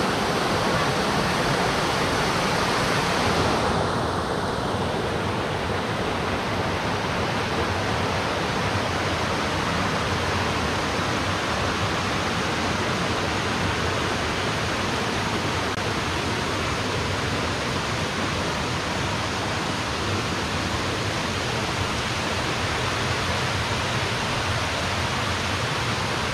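Small waterfall and rocky stream rushing over boulders: a steady, even rush of water. About four seconds in, the top of the sound drops away a little and it turns slightly duller.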